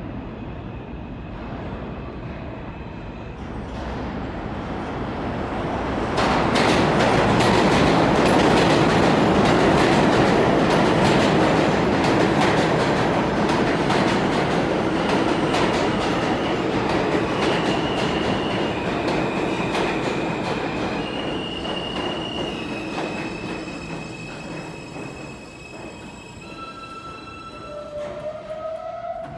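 R160 subway train arriving in an underground station: a rumble that builds to a loud roll about six seconds in, with the wheels clacking over rail joints. As it brakes, steady high wheel squeals set in, and near the end a short rising tone sounds as it comes to a stop.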